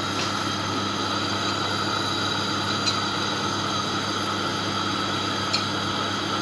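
Steady kitchen background hum with an even hiss, broken only by a couple of faint ticks.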